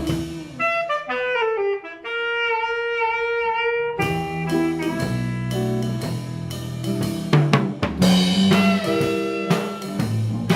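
Live instrumental band. A lone wind instrument plays a descending run and holds a note with vibrato, then the full band with drum kit comes back in about four seconds in.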